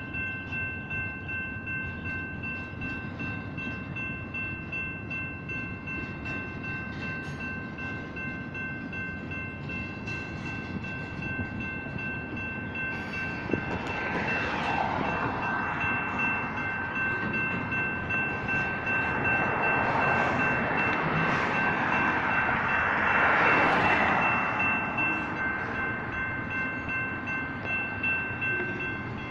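Railroad crossing electronic bells ringing steadily at several fixed pitches while a long double-stack intermodal freight train rolls past with a low, continuous rumble. About halfway through, a louder rushing noise from the passing cars swells up in waves, then eases off near the end.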